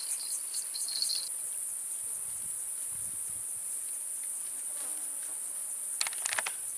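Steady, high-pitched drone of insects. A short run of clicks comes about six seconds in.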